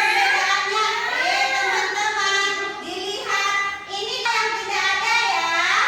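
A child singing, one high voice holding long notes and sliding between them.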